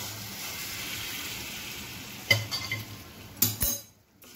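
Chickpea curry in a kadhai hissing and bubbling as hot water is poured in over a high flame. The hiss slowly dies down, and a steel pot knocks twice on the pan, about two and three and a half seconds in.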